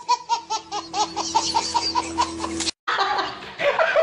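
A baby laughing in a rapid run of short, even bursts, about five a second, that cuts off suddenly nearly three seconds in. Adult laughter and talk follow in the last second.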